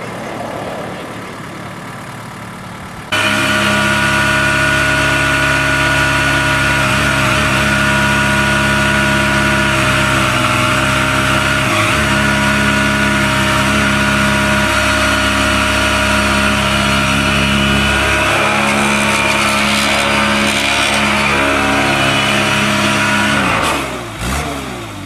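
The engine of a tractor-mounted hydraulic tree spade, held at high, steady revs with a whine on top while the spade blades are driven into the soil around a young tree. It starts abruptly about three seconds in and winds down with a falling pitch near the end.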